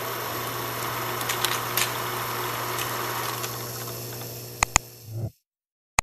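Film-projector sound effect: a steady mechanical whirr with a low hum, hiss and crackle, fading out near the end. Then come two quick sharp clicks and one more click.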